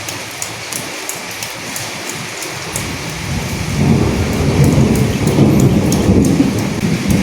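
Steady rain falling on dead leaves, with many separate close drops ticking. A low thunder rumble swells about three seconds in and fades away near the end.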